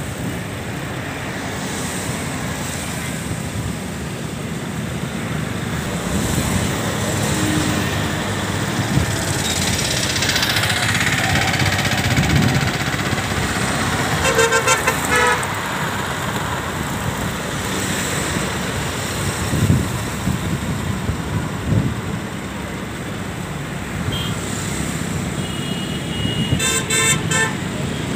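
Road traffic passing close by: motorcycles and scooters. Vehicle horns beep in quick short bursts about halfway through and again near the end.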